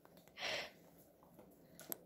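A dog's single short, breathy snort about half a second in, followed by a few faint clicks near the end.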